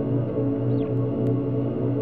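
Ambient music: soft held tones layered over a low note that pulses about three times a second.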